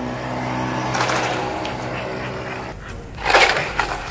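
Leashed pit bull-type dog barking in loud, sudden bursts from about three seconds in as it lunges at a decoy during bite training, over a steady low hum.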